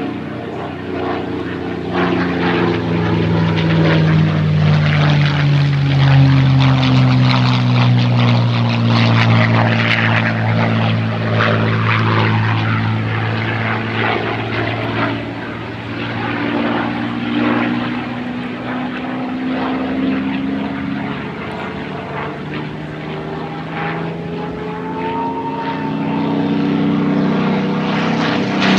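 P-51 Mustang's Merlin V-12 engine in a fly-by, its propeller drone falling steadily in pitch as the plane passes and recedes. Near the end the note rises again as the aircraft comes back.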